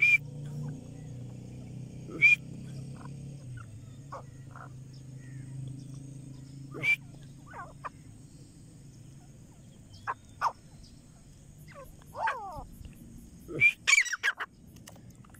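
Grey francolin calling: short, sharp, loud notes at irregular intervals, with a quick cluster of notes near the end. A low steady hum fades out over the first few seconds.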